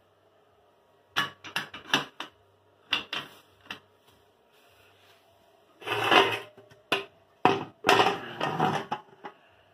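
A motorcycle swingarm and other metal parts being handled on a tiled floor. There is a quick run of sharp knocks and clanks, then a longer scraping noise, a few more knocks and more scraping.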